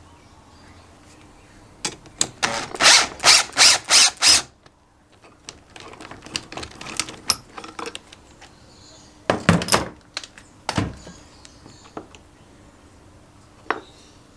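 Ratchet wrench clicking in several quick strokes as it turns the forcing screw of a three-jaw gear puller, drawing a coupling hub off the crankshaft of a Kawasaki KF100 engine. Then come light metal clinks, two louder clunks of steel parts being set down, and a single click near the end.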